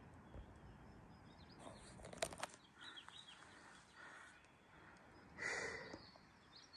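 Faint bird chirps over quiet outdoor background. A few sharp clicks come about two seconds in, and a brief rush of noise follows a little after five seconds.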